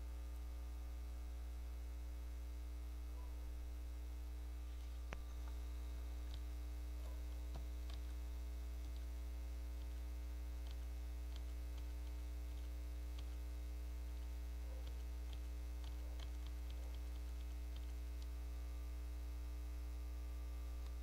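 Steady electrical mains hum with a ladder of overtones, picked up through the recording chain, with a few faint clicks scattered through it.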